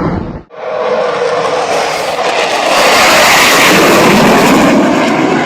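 Military combat aircraft engine noise as a plane passes close by, swelling to its loudest midway and easing slightly near the end; a sudden break about half a second in where the sound cuts off and restarts.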